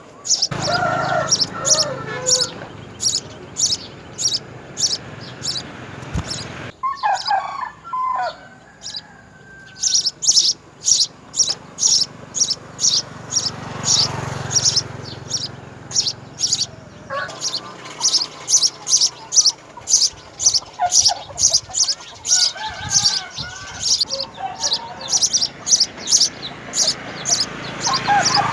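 House sparrows chirping: a steady run of short, high chirps, about three a second, pausing briefly once. Lower, bending calls from another bird come in now and then underneath.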